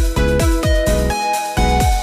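Electronic background music with a heavy, repeated bass beat and sustained synth notes.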